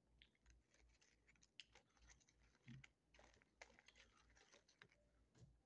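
Very faint, scattered clicks and scratches as a small cookie is dipped and scraped through chocolate frosting in a thin plastic Dunkaroos snack tray.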